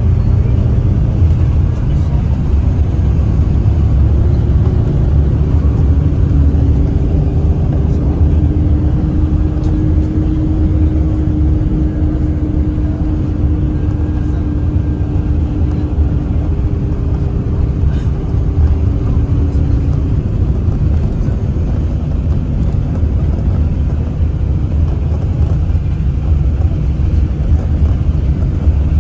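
Inside a moving bus: steady engine and road rumble, with a faint hum that rises and falls gently in the middle as the bus changes speed.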